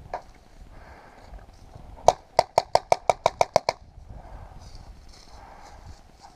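A paintball marker firing a quick burst: one crack, then about ten more in a fast, even string of roughly seven shots a second, lasting about a second and a half.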